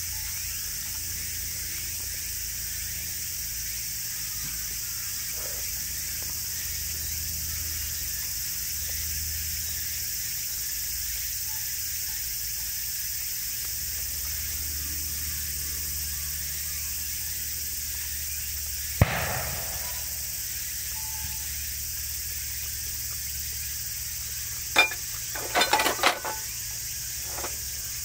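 Steady high-pitched insect chirring, with a single sharp click about two-thirds of the way through and a quick run of clicks and taps near the end.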